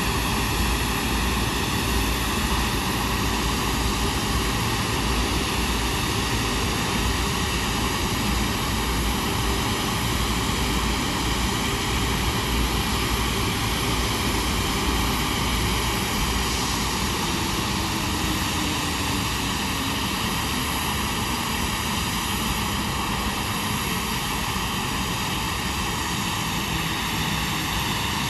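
Rolls-Royce Trent 772B-60 turbofan on an Airbus A330 running steadily in a ground engine run-up, an even jet noise with a high steady whine over it.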